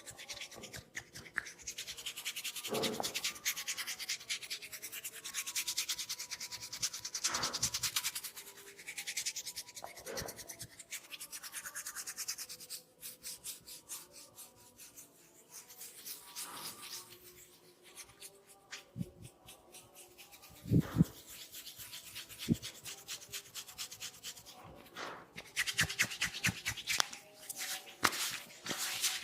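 Hands rubbing and scratching through oiled hair and scalp in a head massage: rapid rasping strokes that come in stretches, softer in the middle. A few dull thumps sound about two-thirds of the way in.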